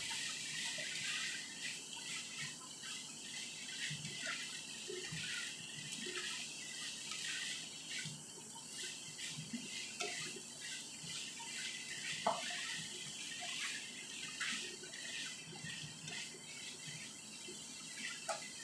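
Shredded chicken sizzling in a nonstick frying pan while a spatula stirs it, with scattered light scrapes and clicks of the spatula against the pan.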